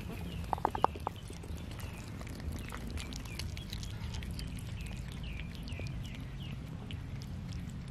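Cats chewing and lapping raw chicken off a steel plate, small wet clicks coming steadily, while birds chirp over and over in the background. A quick run of about five short high notes stands out about half a second in.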